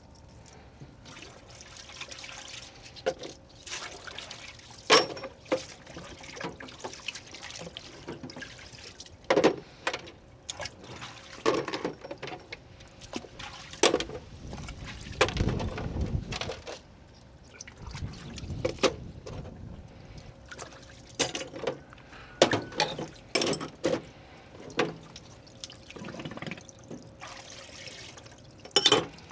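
Small metal shock parts being handled and cleaned on the bench: scattered sharp clinks and knocks, with dripping and splashing liquid, and a longer rustling stretch about halfway through.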